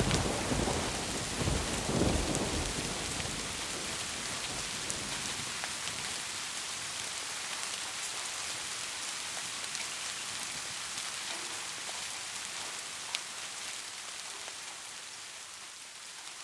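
Heavy rain falling as a thunder rumble dies away over the first few seconds, with a second swell about two seconds in, then a steady rain hiss with occasional sharp drips.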